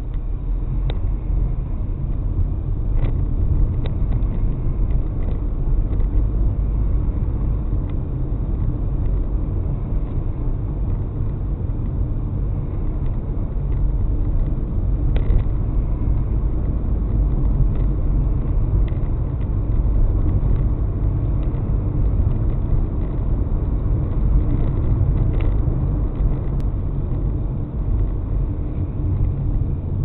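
Car driving on a town road, heard from inside the cabin through a dashcam: a steady low rumble of engine and tyre noise, with a few faint clicks.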